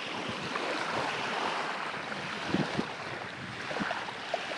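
Wind on the microphone and small waves lapping on a sandy shore, with a couple of soft thumps about halfway through.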